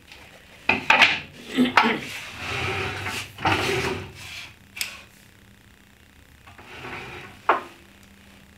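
Wooden pieces handled on a table-saw top: a few knocks about a second in, then a longer rub of wood sliding on wood, then a couple of sharp clicks near the end.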